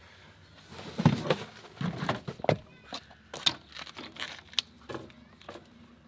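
BMX bike being pulled out of an SUV's cargo area: a string of irregular knocks, clanks and rattles as the frame, bars and pedals bump against the trunk, with a few heavier thumps in the first half.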